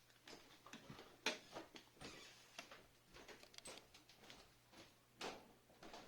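Faint, scattered clicks and light knocks, the loudest about a second in and another near the end.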